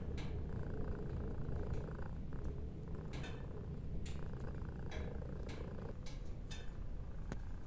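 Domestic cat purring steadily, a continuous low rumble, with scattered faint clicks over it.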